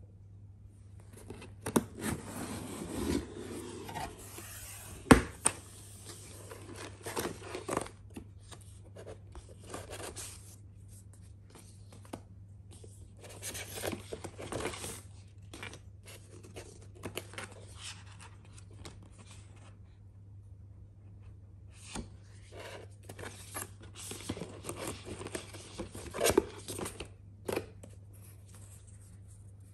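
Cardboard subscription box being opened and its paper and cardboard contents handled: irregular scraping, rubbing and rustling, with a sharp snap about five seconds in and a pause around twenty seconds in.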